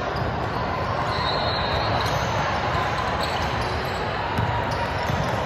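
Steady din of a crowded gym during a team game: a mix of spectator chatter and court noise, with a few faint sharp knocks.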